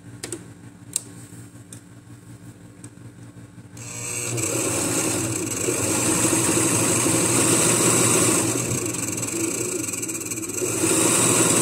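Overlock machine (serger) starting about four seconds in and running steadily at speed, finishing the edge of a joined fabric seam; it runs slightly softer for a couple of seconds before it picks up again near the end. A few light clicks come before it starts.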